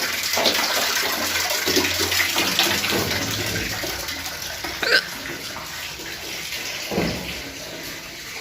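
Water running, fading gradually, with a short sudden sound about five seconds in and another about seven seconds in.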